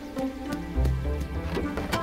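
Cartoon background music: held notes over a low bass note about a second in, with a few light clicks.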